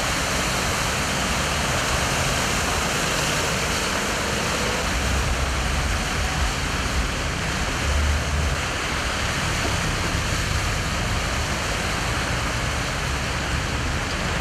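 Steady rush and splash of floodwater churned up by car tyres ploughing through a flooded road, with a low rumble of passing vehicles that swells about halfway through.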